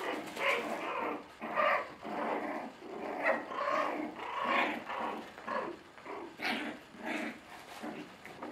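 Five-week-old Bolonka Zwetna puppies growling and yipping in play, a quick run of short growls one after another.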